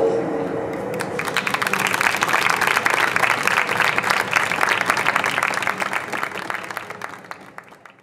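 Audience applauding, starting about a second in as the music dies away, then fading out near the end.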